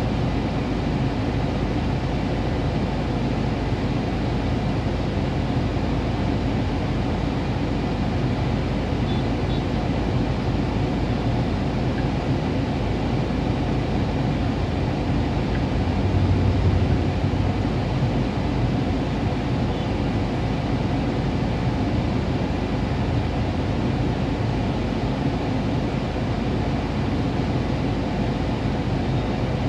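Steady low rumble of a vehicle idling in stopped traffic, heard from inside the cabin, with street traffic around it; the rumble swells briefly about halfway through.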